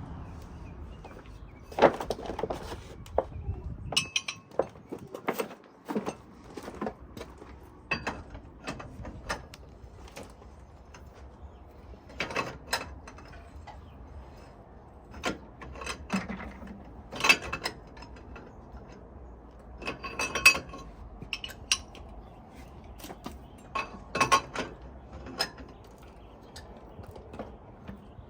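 Metal tools and parts clanking and clinking while a semi-truck wheel hub is worked on during a wheel seal replacement: irregular sharp knocks, some with a short metallic ring.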